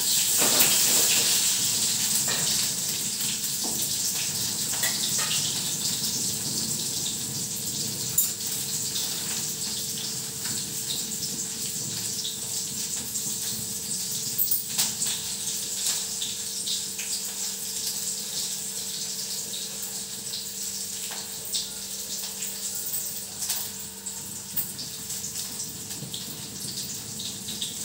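Cumin and onion frying in hot oil in a small kadai: a steady sizzle, loudest at the start and slowly dying down, with occasional light clicks of a ladle against the pan.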